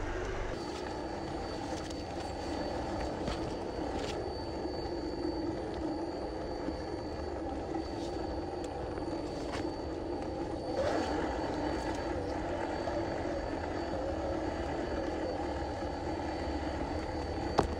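Small electric RC crawler truck running along a dirt track, its motor and gears whining steadily, with a thin high tone above and a few sharp clicks along the way.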